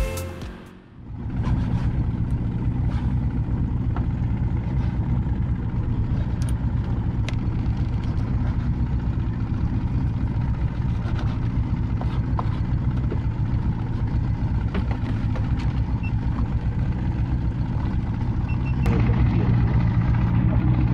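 Boat engine idling steadily, with a few light clicks and knocks on deck.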